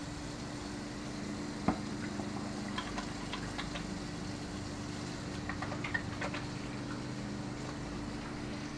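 Kitchen tap water running into a stainless-steel sink while hands are lathered with dish soap and rinsed under the stream, with a steady low hum underneath and a sharp knock about two seconds in.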